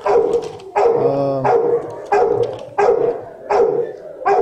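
Shelter dogs barking over and over in the kennel runs, a steady string of loud barks, about three every two seconds, each trailing off into echo.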